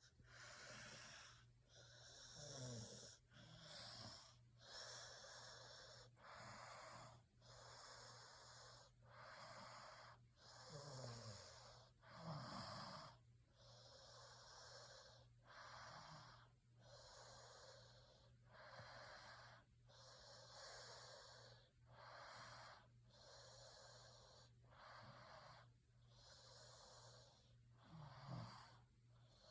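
Sleeper's breathing and snoring: soft, hissy breaths repeating about once a second, with a few short low snorts, over a steady low hum.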